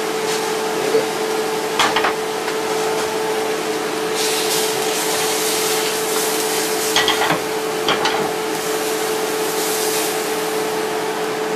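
A stack of tortillas heating in a frying pan, with a soft sizzling hiss that grows brighter in the middle, over a steady hum. A few light knocks come about two seconds in and again around seven and eight seconds in.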